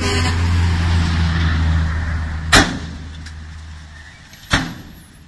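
Dump truck's diesel engine running while the tipped-up body empties its load of stone, the hum fading over the last few seconds. Two sharp bangs cut through it, about two seconds apart.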